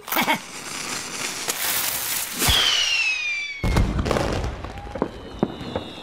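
Cartoon firework rocket sound effects: a hissing whoosh that builds for about two seconds, a falling whistle, then a deep boom a little past halfway, followed by scattered crackles and pops of the burst.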